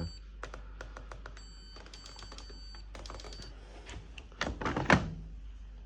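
Candy washing machine's control panel clicking and giving short high electronic beeps as its programmes are switched. Near the end comes a louder plastic clatter, as of the detergent drawer being pulled out.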